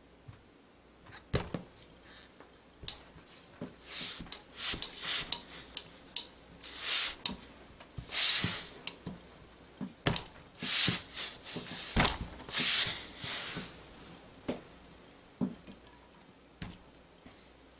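A clothes iron being worked over a knit fabric piece on a table to press fusible stay tape on: a run of short swishing strokes with knocks as the iron is set down and moved, busiest in the middle and tailing off into a few faint ticks near the end.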